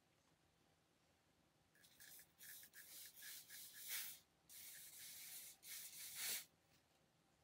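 Aerosol hair spray hissing from a can: a string of short puffs about two seconds in, then two longer sprays, the last stopping near the end, as it is sprayed onto the wig's front edges to hold them down.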